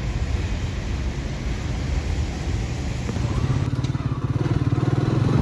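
A motor vehicle engine, likely a motorcycle, running steadily with a low, fast pulsing note. It grows louder about three and a half seconds in.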